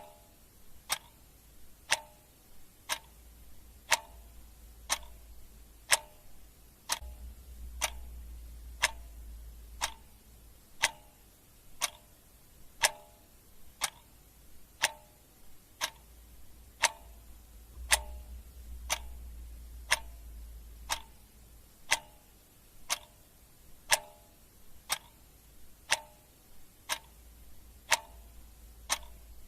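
Clock ticking steadily at about one tick a second. A faint low rumble swells up twice underneath.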